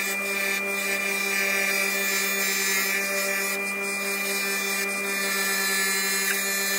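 Bench-grinder wire wheel running steadily with a 3UZ V8 engine valve held against it, the wire brush scrubbing baked-on carbon off the valve: a steady motor hum under a rough hiss.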